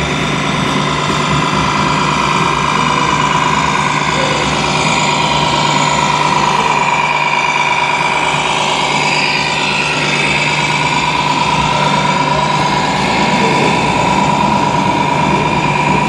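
Tamiya MAN 6x6 RC truck running, its diesel-engine sound steady with a constant high whine over it as the truck drives past and away.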